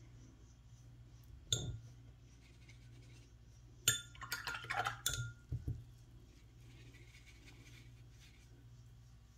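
Hard clinks of glass or ceramic as painting things are handled: one click about one and a half seconds in, then a short run of clinks between about four and six seconds in.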